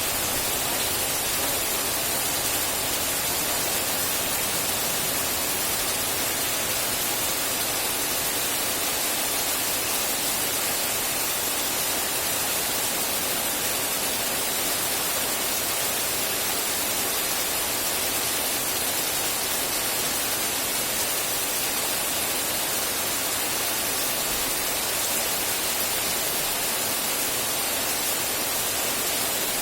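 Rain sound effect: a steady, unbroken hiss of rain with no separate drops, thunder or changes standing out.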